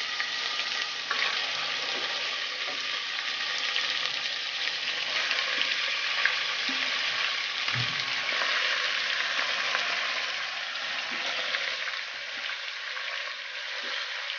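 Raw chicken pieces sizzling and crackling in hot mustard oil and ginger-garlic paste in an aluminium pressure cooker as they are added by hand. There is a dull thump about eight seconds in, and the sizzle eases a little near the end.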